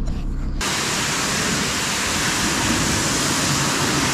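A high-pressure washer jet cuts in about half a second in, after a low hum, and sprays with a steady, even hiss.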